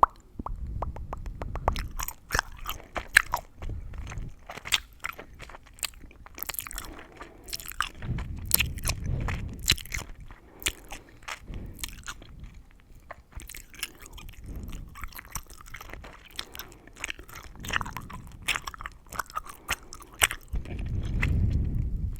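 Close-miked gum chewing: a dense, irregular stream of sharp wet clicks and crackles from the gum, with deeper muffled swells a few times.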